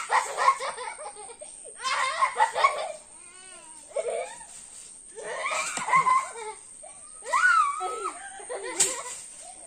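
Young girls laughing and giggling in repeated bursts, with high, bending shrieks between them. There is a sharp knock at the start and another near the end.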